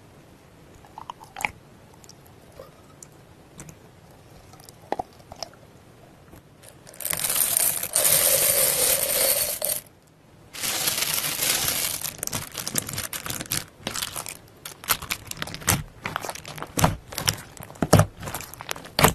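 Clear beads poured onto slime in a dense, rattling stream, about 7 seconds in and again briefly after a short pause. Then come many sharp crunches and crackles as the bead-filled slime is pressed by hand. Before the pour there are only a few soft squelches and clicks of slime.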